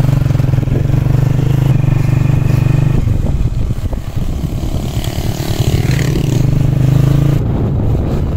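A 125 cc motorcycle engine running under way, heard from the rider's seat: a steady low drone that turns rough and uneven about three seconds in, steadies again, and roughens once more near the end.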